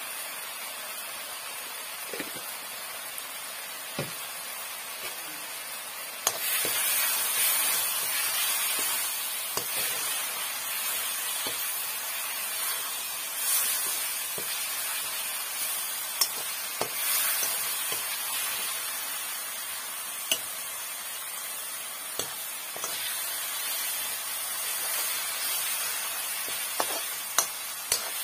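Onion-tomato masala with spice powder frying in a metal kadai: a steady sizzle that gets louder about six seconds in. A metal slotted ladle scrapes and clinks against the pan now and then as the masala is stirred.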